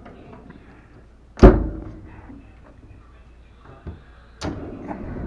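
Metal tool chest drawer slammed shut with one loud bang about a second and a half in, then a sharper clack about four and a half seconds in as another drawer is handled, with a low rolling rumble after it.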